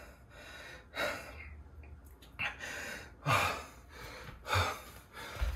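A man breathing hard and gasping, about five deep breaths each a second or so apart, as he recovers from exhaustion after a near-maximal heavy bench-press set.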